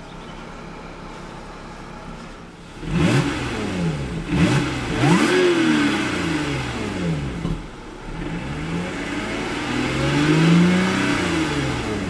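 2012 Lotus Evora S's supercharged 3.5-litre V6 idling, then revved while standing still: a few quick blips starting about three seconds in, then longer revs to around 4,500 rpm, each falling back toward idle. A melodic exhaust note with a touch of supercharger whine, heard from inside the cabin.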